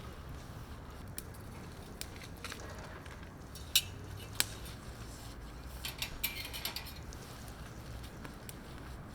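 Light clinks and taps of tableware: two sharp clinks about four seconds in, then a cluster of lighter clicks a couple of seconds later, over a steady low background rumble.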